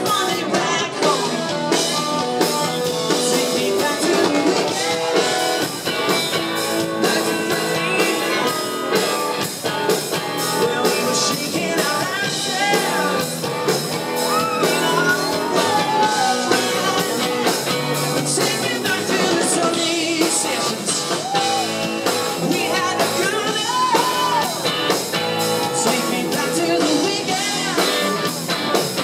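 Live rock band playing: a male lead vocal over electric guitar, bass guitar and drums.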